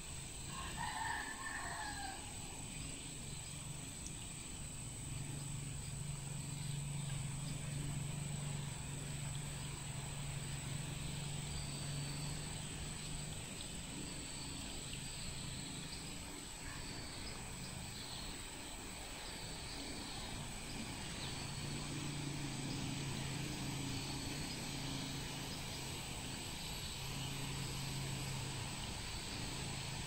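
A rooster crows once, about a second in, over a steady outdoor background with a thin high whine throughout and faint bird chirps. A low steady hum comes in twice, for several seconds each time.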